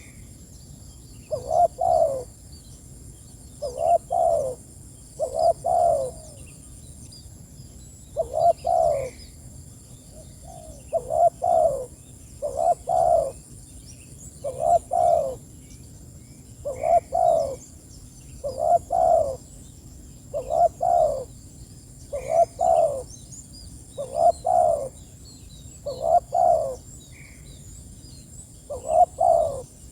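Spotted dove calling over and over: a low cooing phrase of two or three notes about every two seconds, the calling song used to call other doves in.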